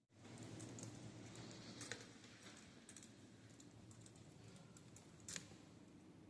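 Near silence: faint room tone with a few light, scattered clicks, the clearest about five seconds in.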